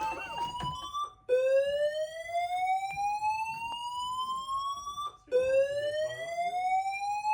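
Building fire alarm sounding its evacuation whoop: a tone that rises slowly in pitch over about four seconds, cuts off, and starts again from the bottom, about a second in and again about five seconds in. It is signalling everyone to evacuate the building.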